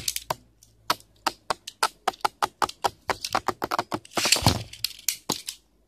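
Two Beyblade Burst spinning tops clashing and ricocheting in a tray arena: a rapid, irregular run of sharp plastic clicks, several a second. There is a longer scraping rush about four seconds in.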